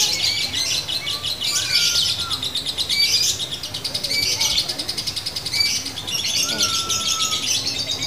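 Female Fischer's lovebird singing a long, nearly unbroken, rapid high chattering trill. This is the drawn-out 'ngekek' song that fanciers call 'ngunci', the bird locking into song.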